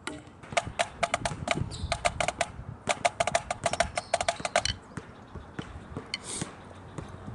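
Drumsticks playing fast rudiment strokes on a drum practice pad, a dense run of sharp clicks that stops about four and a half seconds in, followed by a few scattered taps.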